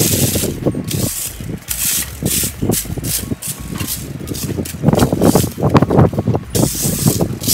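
A rake scraping across gravel and dry leaves in quick repeated strokes, loudest about five to six seconds in.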